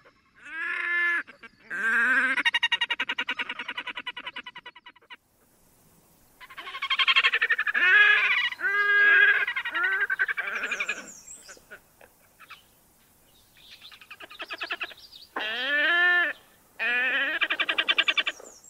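Red-necked grebes calling in their courtship display: loud bouts of fast-pulsed braying and wailing calls, each a second to a few seconds long, some rising and then falling in pitch, with short pauses between.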